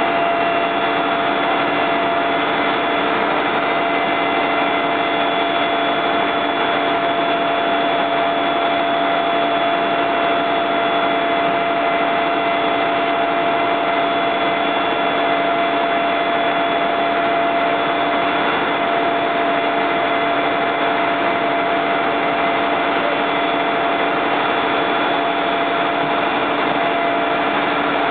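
Fire truck engine running steadily at the scene: an unchanging mechanical drone with a steady whine in it.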